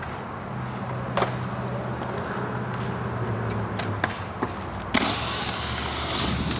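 Skatepark sounds: a steady low hum with a few sharp clicks and knocks of skates on concrete. About five seconds in, a sudden louder rush of skate wheels rolling on concrete close by.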